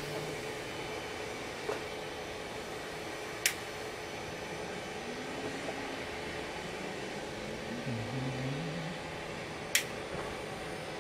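Steady mechanical hum with three short sharp clicks spread across it, two of them loud, from hands fitting plastic wiring conduit and cable ties in a car's engine bay.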